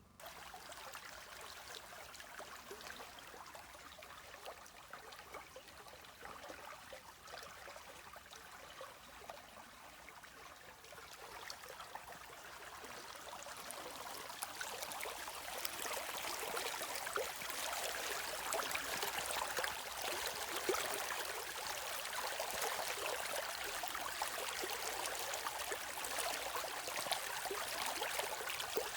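Running water of a stream or small river, a steady rushing with fine trickling and babbling, swelling louder about halfway through.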